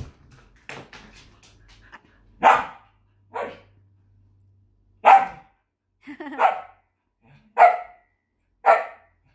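Samoyed barking at a treat on the floor in front of her while crouched in a play bow: about six sharp barks, roughly a second apart, starting a couple of seconds in.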